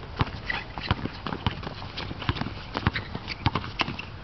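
A basketball bouncing and sneakers hitting an outdoor court during play: irregular sharp thuds, a few a second.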